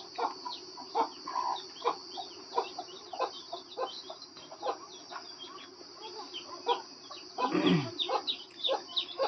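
Chickens clucking with small peeps, in short repeated calls. About three-quarters of the way through comes one brief falling sound.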